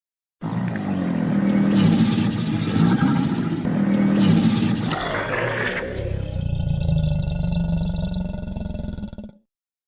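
Custom creature roar sound effect made for the Tick Tock Croc, a long growling roar that changes character about five seconds in and again a second later, then cuts off.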